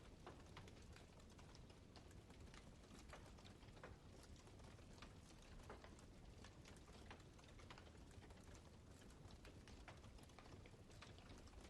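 Faint crackling of a wood campfire: irregular small pops and snaps, several a second, over a steady low rumble.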